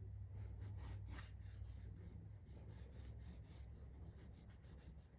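Pencil sketching lightly on drawing paper: faint, short scratchy strokes at an uneven pace, over a low steady hum.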